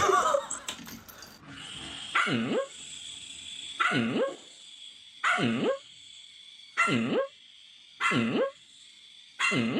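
Dog barking: six single barks at a slow, even pace, about one and a half seconds apart. A steady high-pitched tone runs beneath them from about a second and a half in.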